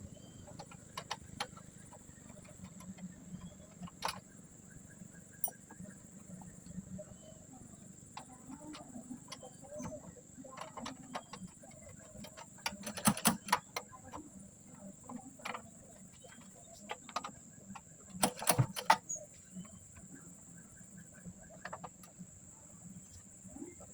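Hand work on a ketinting boat engine's recoil pull-starter: scattered light clicks and knocks of small parts being handled, with two short bursts of louder rattling clicks, one about halfway through and one a few seconds later.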